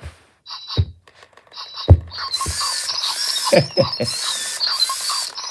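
Pyxel robotic toy dog playing its chomping treat sound through its speaker after its nose proximity sensor is triggered: repeated crunching bursts with squeaky electronic warbles, starting about two seconds in. A few soft thumps come before it.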